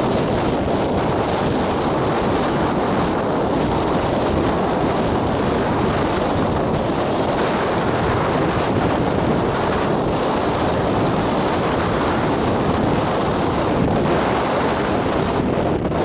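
Wind blowing across the microphone, a steady rushing noise with no clear breaks.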